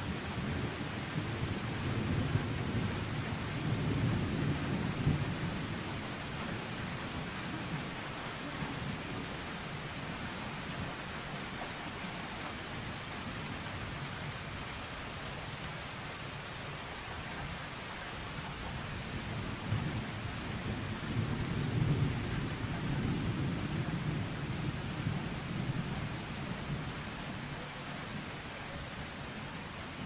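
Thunderstorm: steady rain falling, with low rolling thunder rumbling through the first few seconds and fading, then a second rumble swelling about two-thirds of the way through and dying away.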